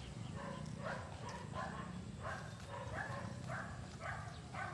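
An animal calling over and over, short pitched calls at about two to three a second, over a low steady rumble.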